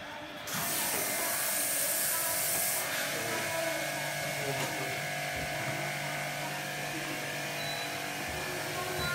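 Small electric motor buzzing steadily, starting about half a second in, with a hiss over its first two seconds or so.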